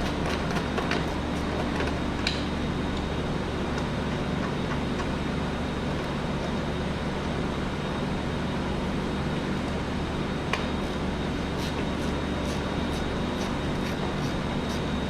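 Steady machine hum with a low drone, with scattered light clicks and taps over it, the sharpest about two seconds in and again about ten seconds in.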